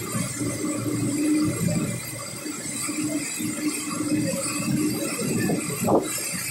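Floodwater rushing and churning through a street, an irregular splashing wash with a short louder splash about six seconds in.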